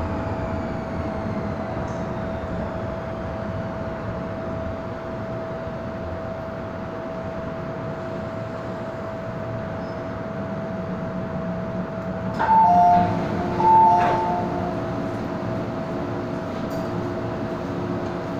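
Hong Kong MTR M-Train running and braking, heard from inside the car: a steady whine over the running rumble, with higher whines falling in pitch in the first few seconds. About two-thirds of the way in, a loud two-note chime sounds twice, as the train stands at the platform before its doors open.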